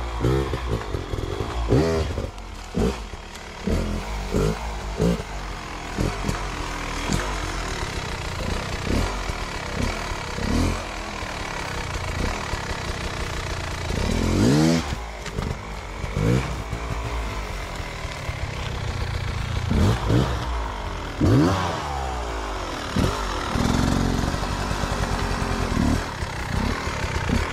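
Off-road dirt bike engine blipped again and again in short revving bursts, each rising quickly in pitch and dropping back, as the bike is worked up a steep rocky climb. Two of the revs, about halfway through and again about two-thirds in, are longer and louder.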